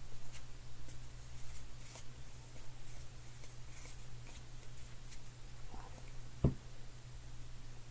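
Baseball cards being flipped through by hand: faint, scattered ticks and rustles of card stock sliding over card stock, over a steady low hum. One thump about six and a half seconds in.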